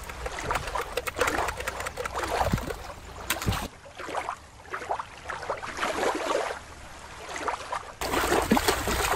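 Shallow water lapping and splashing as a plastic toy shark is dipped and swished through it. For about four seconds in the middle the sound changes to a duller, muffled water sound, then the splashing returns near the end.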